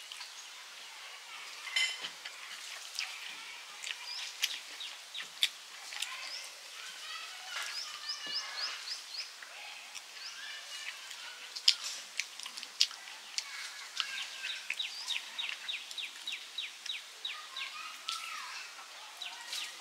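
Birds chirping in quick series of short, high calls, with the close-up sounds of eating underneath: chewing and sharp mouth clicks, and fingers mixing rice on a metal plate.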